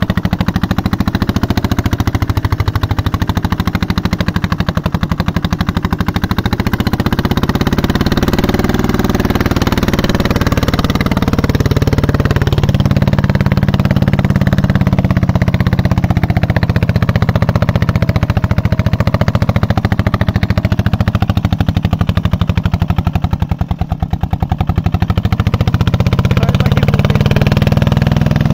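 Single-cylinder diesel engine of a two-wheel walking tractor pulling a cart, chugging loudly and steadily as it labours up a rutted dirt track, belching black smoke under heavy load. The chugging eases briefly a few seconds before the end, then picks back up.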